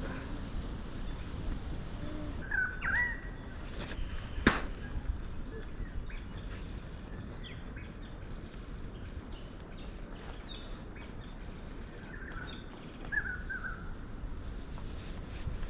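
Wild birds calling in short chirps over a steady low outdoor rumble, with a sharp click about four and a half seconds in.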